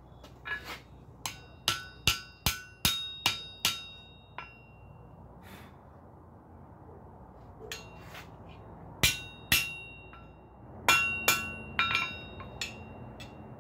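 Hand hammer striking a hot, folded flat steel bar on an anvil to forge-weld it, each blow ringing. There is a quick run of about eight blows, roughly two to three a second, then a pause and a second, looser group of blows.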